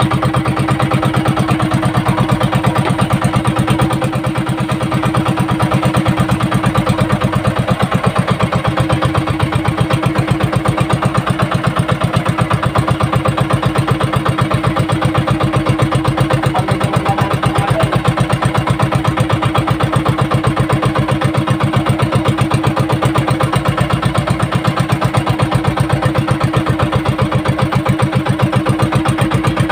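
Small outrigger fishing boat's engine running steadily at an even speed, a fast, regular chug with a constant hum.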